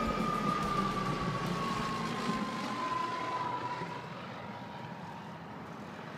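Piper PA-44 Seminole twin-engine propeller plane, with two four-cylinder Lycoming engines, passing low overhead. Its engine-and-propeller drone falls steadily in pitch as it goes by and gradually fades.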